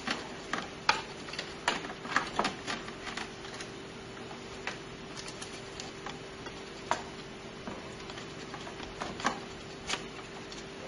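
Irregular small clicks and taps of hands handling cables, connectors and plastic parts inside a desktop computer case, over a steady low hum.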